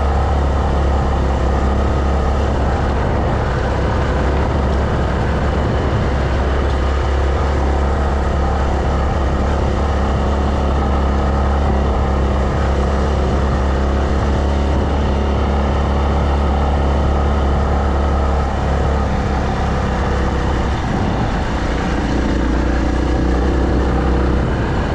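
Yamaha Serow trail bike's single-cylinder four-stroke engine running steadily while riding along a dirt forest road, with a constant low hum.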